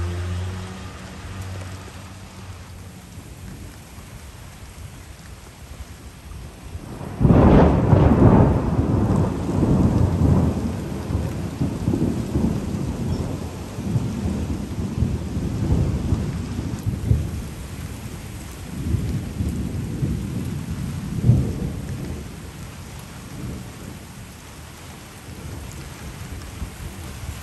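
Thunder during a thunderstorm: a sudden loud crack about seven seconds in that rumbles on for around ten seconds, then further rumbles with a sharp peak a little past the twenty-second mark, over steady rain.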